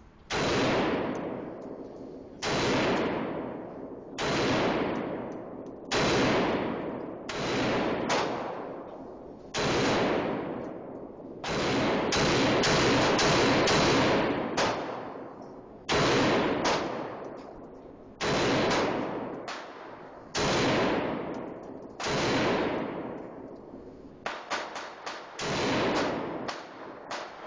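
Springfield Armory SOCOM 16, a .308 semi-automatic rifle, fired a dozen or more times, mostly a second or two apart, with a quicker string of shots near the middle. Each shot rings out and dies away slowly in the echoing indoor range.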